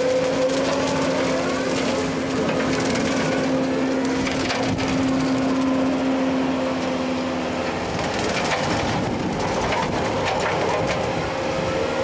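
Skid-steer brush mower at work: the Kubota SSV75's diesel engine and the hydraulically driven two-blade rotary mower run under load, with a steady tone under a constant crackle of brush and grass stems being cut and shredded. The mower is on standard hydraulic flow, about 21 gallons a minute.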